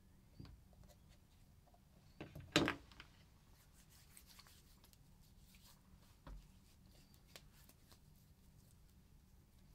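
Soft handling sounds: a few light knocks, the loudest about two and a half seconds in, then faint rustling as hands are rubbed together.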